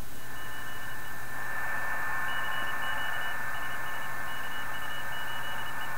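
PSK31 digital-mode signals on the 20 m ham band heard through a receiver's speaker: a steady tone over even band hiss, with a second, broken on-off tone higher up starting about two seconds in.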